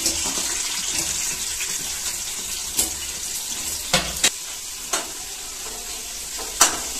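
Sliced onions sizzling in hot oil in an aluminium pressure cooker, just added and starting to fry: a steady hiss with a few sharp clicks of a steel spoon against the pot as they are stirred.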